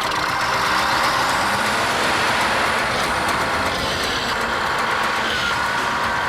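Bulldozer's diesel engine running steadily at work, with a faint high whine near the end.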